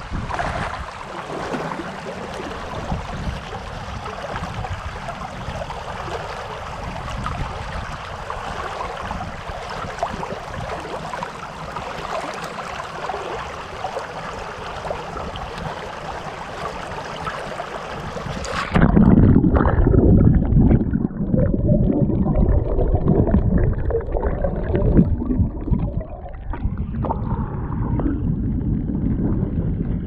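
Shallow creek water rushing and gurgling over a gravel and stone riffle. About two-thirds of the way through, the sound suddenly turns muffled and deeper as it is heard from under the water, with churning and sloshing in the low end.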